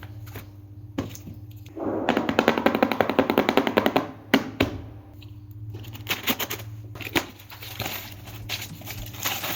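Packaging being torn open by hand: a rapid, crackling run of clicks for about two seconds, followed by scattered sharp clicks and taps as the package is handled.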